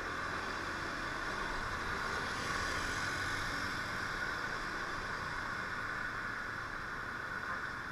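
Steady riding noise from a motor scooter moving along a city road: engine, tyre and wind noise blended into an even hum, with passing traffic.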